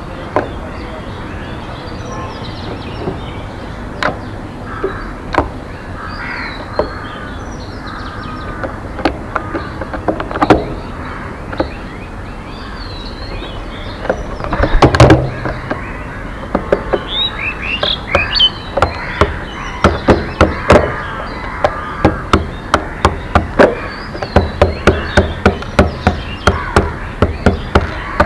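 Wild birds chirping and calling over one another, with sharp knocks that are scattered at first and then, about halfway through, become a steady run of roughly two blows a second.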